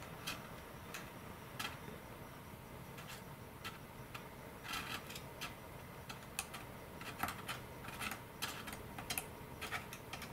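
Faint, irregular light ticks and scrapes of a thin applicator tapping inside a fuselage's servo-tray bay while dabbing in epoxy to glue the tray, with the clicks coming thicker about halfway through and again near the end.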